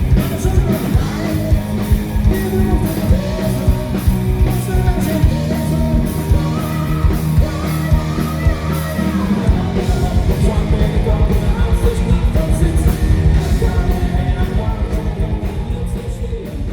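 Live band playing a rock-style song with singing over a steady drum beat; the music fades and ends near the close.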